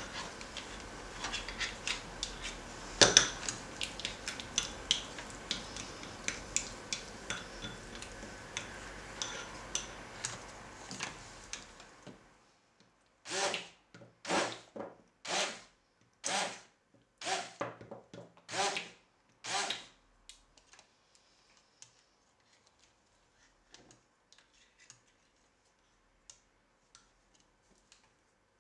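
A spatula scraping and stirring thick cream in a glass bowl, with many small clicks against the glass, for about twelve seconds. Then a stick blender runs in about seven short pulses, each under half a second, followed by a few faint taps.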